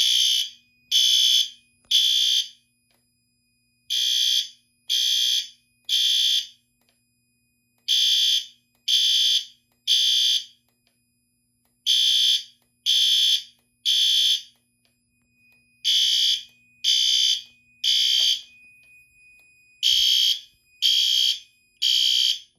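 System Sensor P2RL horn strobe, set on low volume, sounding the temporal-three evacuation pattern: three blasts about a second apart, then a pause, repeated six times before it stops. It is a fire-alarm activation set off by a smoke detector being tested with canned smoke.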